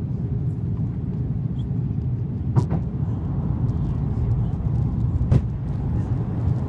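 Airbus A330-200 cabin noise on approach: a steady low rumble of engines and airflow. Two brief sharp knocks cut through it, about three seconds apart.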